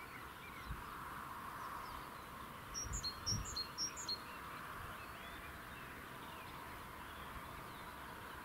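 A bird giving a quick run of about five high, paired chirps about three seconds in, over steady faint outdoor background hiss.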